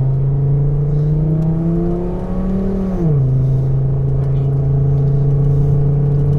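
Chevy Colorado pickup accelerating hard from a launch: the engine's pitch climbs, drops sharply about three seconds in as the transmission shifts up, then holds nearly steady as it keeps pulling.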